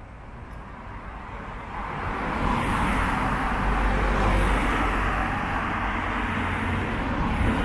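A motor vehicle running close by, unseen, growing louder over the first two or three seconds and then holding steady as a rumbling road-traffic noise.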